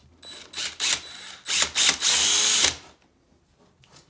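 Cordless drill with a thin bit drilling pilot holes into a cabinet door for a concealed hinge: a few short bursts of the motor, then a longer, louder run that stops just before three seconds in.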